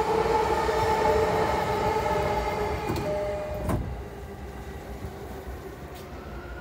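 Sliding passenger doors of a JR East E233-series commuter train shutting with a thud about three and a half seconds in, after several seconds of steady electronic chime tones. The carriage then goes quieter, with a faint click near the end.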